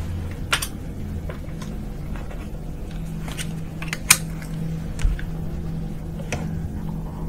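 A few short, sharp clicks of glass microscope slides being swapped and set on the microscope stage, the loudest about four seconds in, over a steady low hum.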